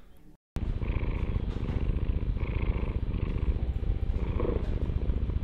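Domestic cat purring steadily, close to the microphone; the purr starts about half a second in.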